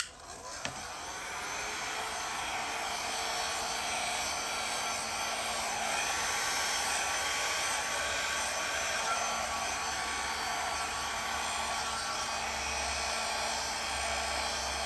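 Handheld hair dryer running steadily as it blows wet acrylic paint across a canvas in a Dutch pour. It starts at the beginning and comes up to a steady run within about two seconds.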